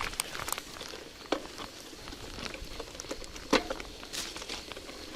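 Bicycle tyres rolling over wet, muddy ground, with irregular crackles and clicks of mud and grit. There is a sharper knock just over a second in and a louder one about three and a half seconds in.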